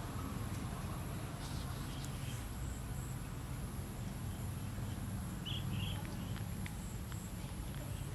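Outdoor ambience: a steady high insect drone over a low hum, with a couple of short chirps about five and a half seconds in.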